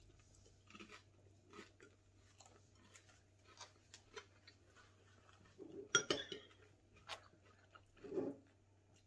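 Quiet eating: metal spoons tapping and scraping in ceramic soup bowls, with chewing, and a sharper clink about six seconds in.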